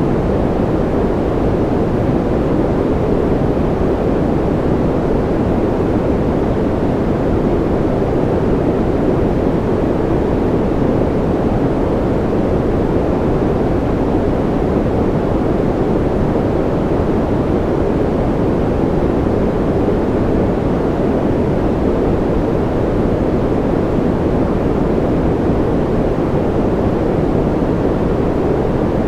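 Continuous generated ambient noise, a deep, even hiss weighted toward the low end, with no drops, clicks or changes.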